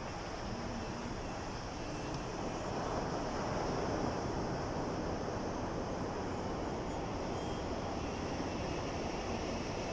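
Sea waves breaking and washing on the shore as a steady rushing surf, swelling a little about three seconds in as a wave comes in.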